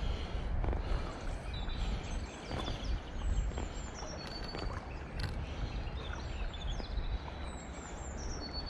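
Riverside ambience: a steady low rumble of wind on the microphone and moving water, with birds calling in short, high whistled notes, several of them falling in pitch, scattered throughout.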